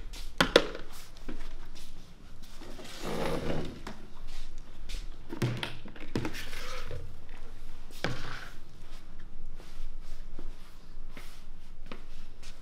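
Plastic basins being set down on wooden tables: several separate knocks and thunks, the first, about half a second in, the loudest.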